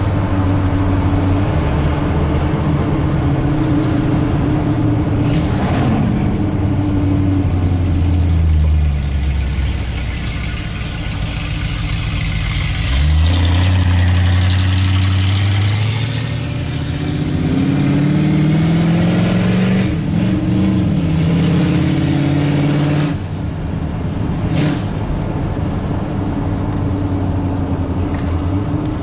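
Vehicle engines and road noise on the move: a steady engine drone whose pitch drops and picks up again several times. About 13 seconds in it suddenly picks up, and it rises and falls between about 17 and 22 seconds.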